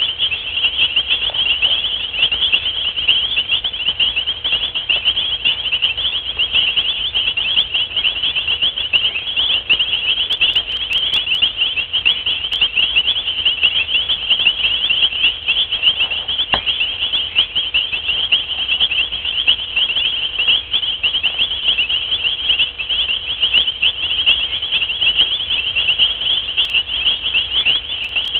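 A steady night chorus of insects: many high-pitched trills overlapping into one continuous, rapidly pulsing wash.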